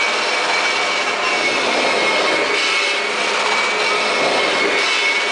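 Kirby vacuum cleaner running steadily: a continuous rushing motor noise with a constant high whine on top.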